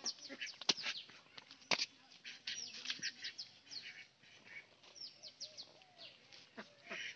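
Small birds chirping: many short, high, falling notes, repeating throughout. There are two sharp clicks, about a second in and again a second later.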